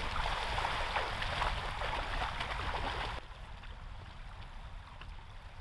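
Lake water splashing and sloshing as a person and a dog wade through the shallows. About three seconds in it drops abruptly to a quieter, duller wash of water.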